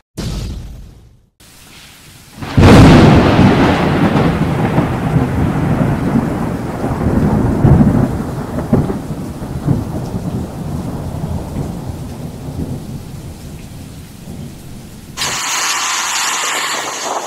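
A sudden thunderclap about two and a half seconds in, then a long rolling rumble of thunder that slowly fades. Near the end a steadier, hissier sound takes over.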